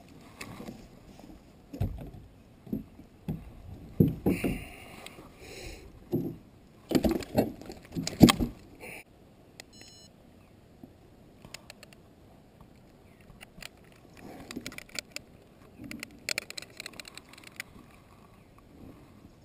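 A largemouth bass being fought and landed into a sit-on-top fishing kayak. A series of loud knocks and thumps comes in the first half, then a run of light clicks and jingles as the rod, reel and fish are handled.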